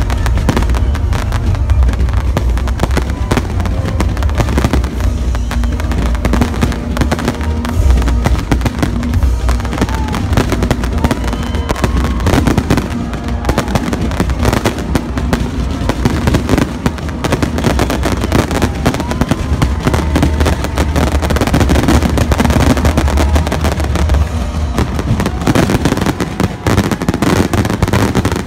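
Fireworks going off in a rapid, continuous barrage of bangs and crackles, with the show's music playing underneath.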